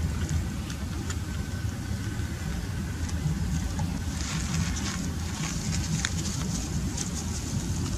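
Wind buffeting the microphone outdoors: a steady low rumble, with scattered faint clicks over a light high hiss.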